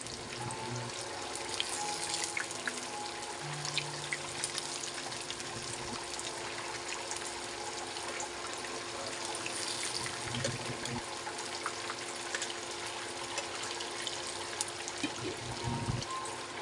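Breaded pork chops deep-frying in a pan of hot oil: a steady sizzle with fine crackles and pops.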